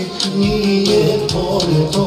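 Live Albanian folk song on electronic keyboard and electric guitar: a wavering keyboard melody over a steady programmed beat with crisp high ticks.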